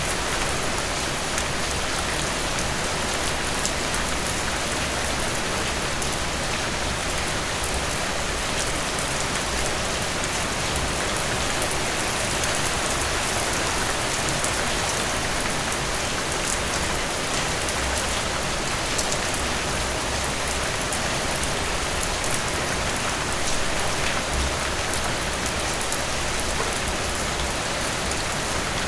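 Steady rain falling, a continuous hiss with fine scattered drop ticks and a low rumble underneath.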